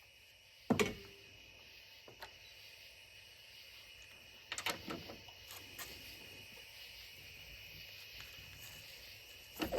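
A few faint clicks and knocks over a quiet background, the sound of tools being handled after the cordless ratchet has stopped.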